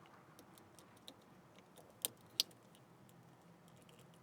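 Faint, scattered clicks and ticks of a hook picking broken plastic out of the metal retaining clips of an overhead console, with two sharper clicks about two seconds in.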